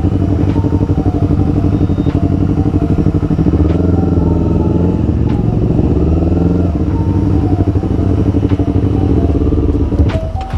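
Motorcycle engines running at low speed and idling while the bikes roll in and park, the nearest a Honda CBR250RR's 250 cc parallel twin, with a few short rises in revs. The engine note falls away near the end.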